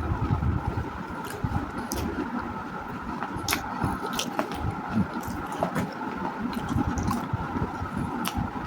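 Close-miked chewing of baked clay: continuous moist grinding and mashing, broken by scattered sharp crunches every second or so.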